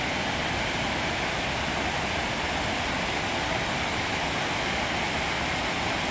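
Water pouring steadily over a low concrete dam spillway, a constant rushing roar with no breaks.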